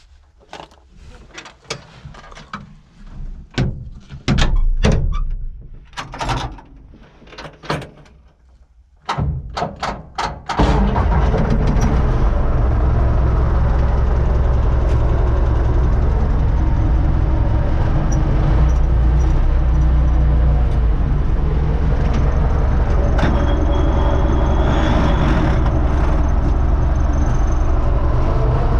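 Knocks and clicks from inside a U650 tractor cab, then about ten seconds in the tractor's diesel engine starts abruptly and runs steadily, heard loud from inside the cab.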